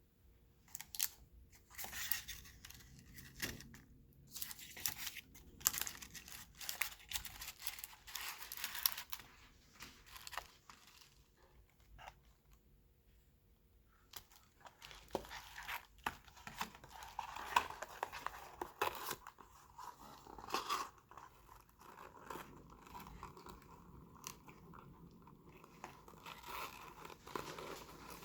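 Crinkling and crackling of thin plastic sheets being handled and peeled, in many short crackly bursts, busiest in the first half.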